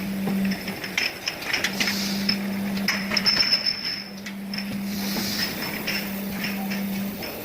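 Automatic cough syrup bottle rinsing machine running: bottles clinking and knocking against each other and the machine parts, over a steady low machine hum that stops shortly before the end.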